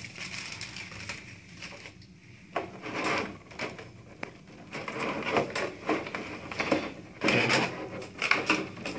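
Clear plastic blister packaging and a plastic bag crinkling and rustling as they are handled, in irregular bursts that get busier after about five seconds.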